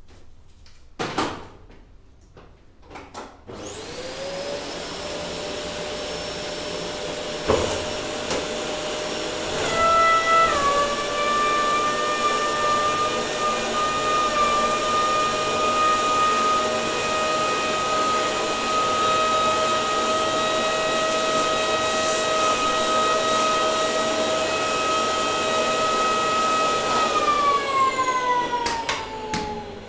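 Vacuum cleaner motor switching on and whining up to speed. It runs steadily through a homemade bucket-and-pipe cyclone separator, with its pitch dropping a little about ten seconds in. Near the end it is switched off and winds down with a falling whine. A few clicks and a knock come before and just after start-up.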